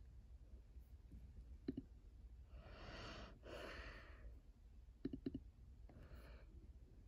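A quiet room with a few computer mouse clicks, and a little under three seconds in, a person's audible breath, a soft sigh in two parts.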